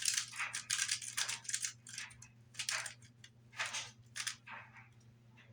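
Rubik's cube layers being turned by hand: a run of quick plastic scraping turns, then a few slower ones, over a steady low electrical hum.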